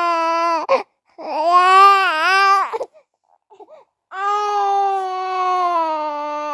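Baby crying in long, drawn-out wails, three of them with short gaps for breath, the middle one dipping in pitch partway through.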